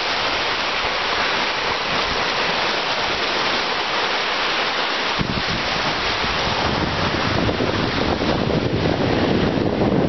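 Small sea waves breaking and washing up a sandy beach, a steady surf hiss. About halfway in, wind starts buffeting the microphone with a low rumble.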